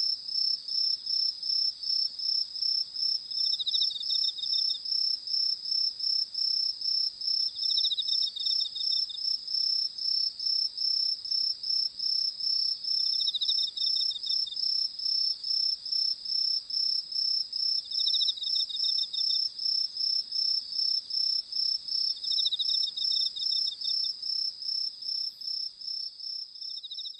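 Crickets chirping at night in a steady chorus: a rapid pulsing chirp at about three or four pulses a second, with a second insect's short trill every four to five seconds. The chorus fades near the end.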